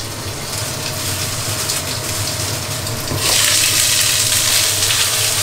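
Food frying in a pan on a gas stove, a steady sizzle that grows louder about three seconds in as the glass lid comes off.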